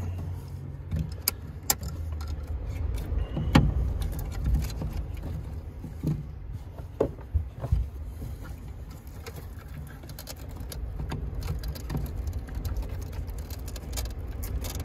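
Scattered clicks, clinks and knocks of hands working battery cables and connectors, with a louder knock about three and a half seconds in, over a steady low hum.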